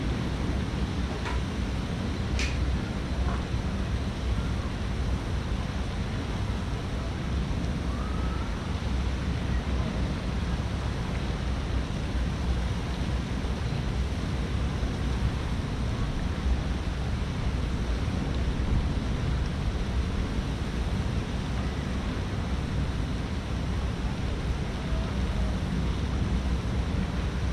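Steady low rumbling noise with a fainter hiss above it, even in level throughout, with a few faint short chirps and one brief click.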